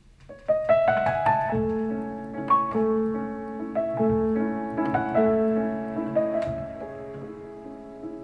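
Piano music played back through a pair of Tang Band W4-2142 4-inch full-range drivers in small bass-reflex cabinets, starting about half a second in with struck notes and chords that ring on.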